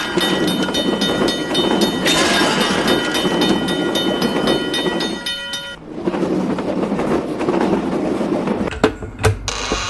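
Train running past, a dense rumble and clatter of wheels with steady high ringing tones over it. It changes abruptly about six seconds in to a rumble without the ringing tones, and a few sharp clicks come near the end.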